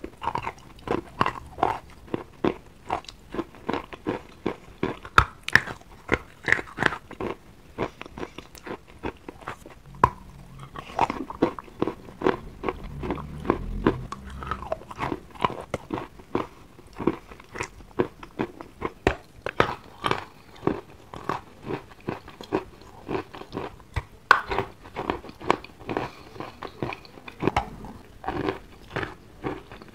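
Wet chalk being bitten and chewed: soft, slushy crunches, several a second, with a low rumble for a few seconds midway.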